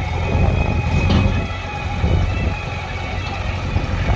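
Diesel engine of a JCB 3DX backhoe loader running steadily as the machine drives forward.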